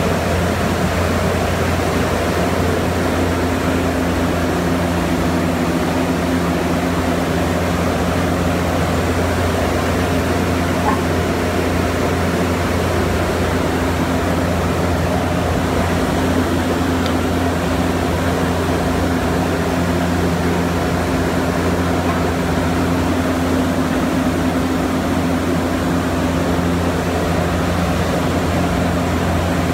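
Mattison rotary knife lathe and its workshop machinery running steadily with a low hum and hiss, idling while the post is loaded, with no cutting heard.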